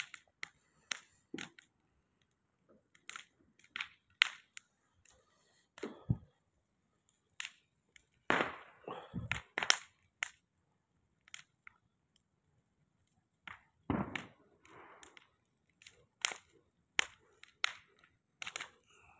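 Bonfire of garden rubbish and wood crackling, with irregular sharp pops and snaps, a few louder ones clustered together.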